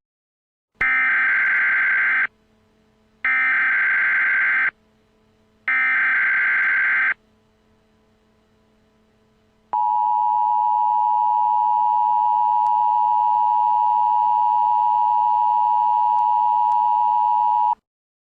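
Emergency Alert System signal. Three short bursts of SAME header data tones come about a second apart, then the two-tone attention signal (853 and 960 Hz) holds steady for about eight seconds and cuts off abruptly. This is the start of an emergency alert broadcast.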